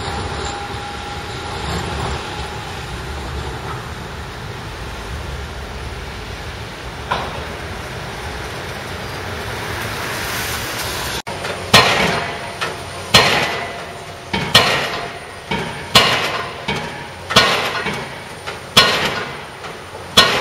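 City street traffic at a tram junction, a steady rumble. Then a pile-driving rig's hammer strikes a pile in seven sharp blows about every one and a half seconds, each ringing briefly.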